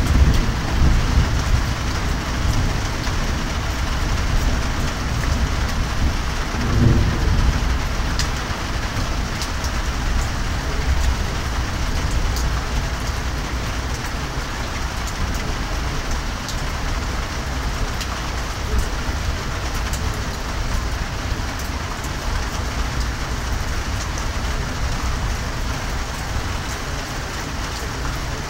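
Heavy rain falling steadily in a thunderstorm. Low thunder rumbles at the start and fades within the first second, and a shorter low rumble comes about seven seconds in.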